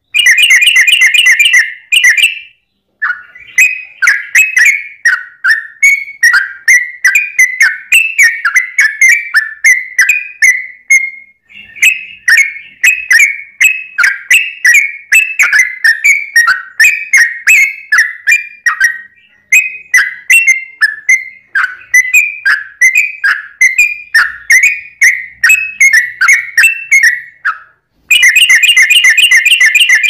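Yellow-vented bulbul singing loudly in a long chattering run of short, liquid whistled notes, about two phrases a second. Fast rolling trills come at the start and again near the end.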